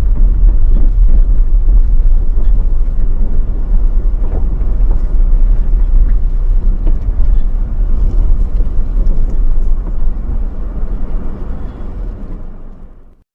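A steady, loud low rumble of a car driving on the road, fading out shortly before the end.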